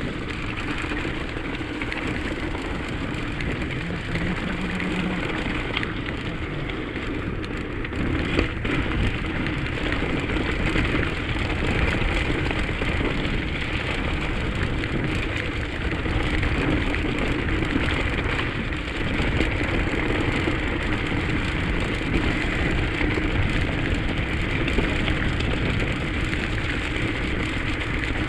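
Mountain bike tyres rolling over a wet, muddy gravel track with slush, a steady gritty rush with fine crackling from the stones. It gets a little louder about eight seconds in.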